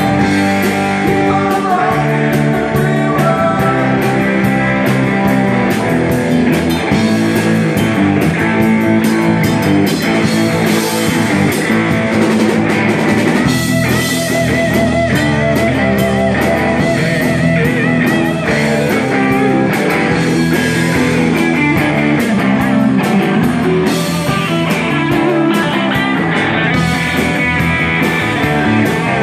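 Live rock band playing loudly: electric guitars over a drum kit, going steadily throughout.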